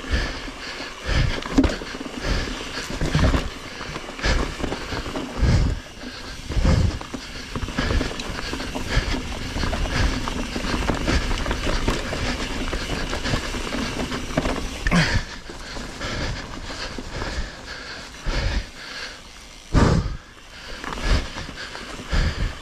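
Mountain bike descending a loose dirt woodland trail: tyres rolling over dirt and leaves with a steady rushing noise, and frequent short thuds and rattles as the bike goes over bumps.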